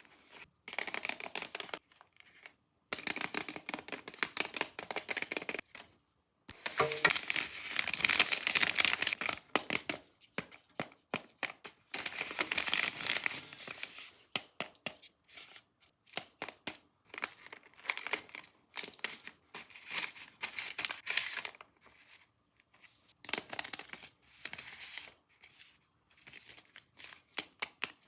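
Paper being torn open and crinkled by hand in stop-start bursts as a homemade paper blind bag is unwrapped, loudest in two spells about a third and a half of the way through.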